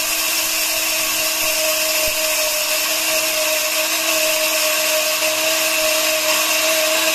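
LEJIEYIN high-speed electric blade grain grinder running at full speed while milling rice into rice flour. It is really noisy: a steady motor whine over a rushing hiss of grain hitting the blades, with no change in pitch.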